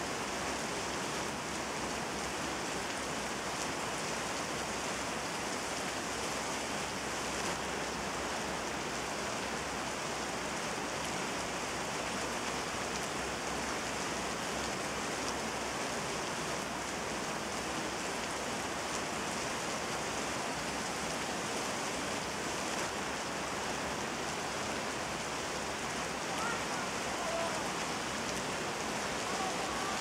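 Steady rain, an even hiss of falling drops that does not let up. Near the end, a few faint short chirps sound over it.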